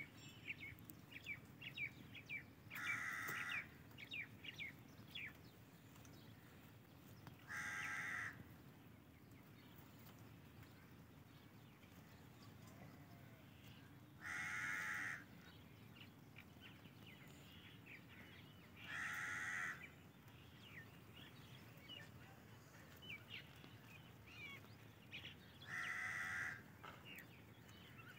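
A bird calls loudly five times, about once every five seconds, each call a cry of about a second. Faint quick chirps come in between, over a low steady background hum.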